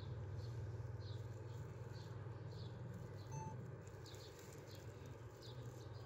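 Small birds chirping in short falling notes, a few every second, faint over a steady low hum.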